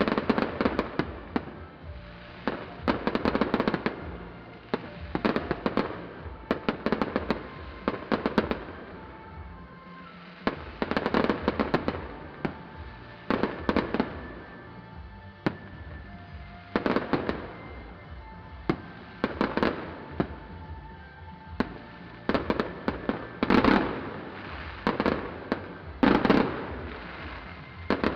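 Fireworks going off in rapid volleys of bangs and crackling, clustered every two to three seconds, with music playing underneath.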